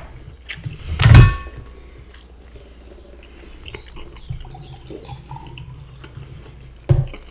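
Close-miked eating sounds: quiet chewing and small cutlery noises, with one loud knock carrying a brief metallic ring about a second in.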